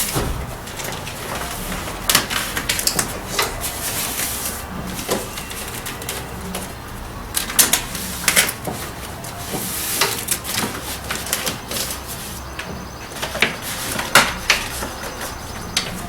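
Handling noise from reassembling a car door: scattered clicks, knocks and rattles of parts being fitted back in place, a handful of sharper knocks standing out.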